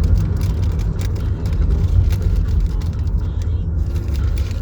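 A steady low rumble, with faint short crackles and clicks throughout.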